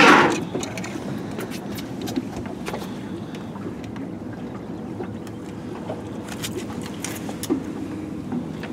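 Steady low hum on a small fishing boat, with a few faint clicks and light knocks and a short loud noise right at the start.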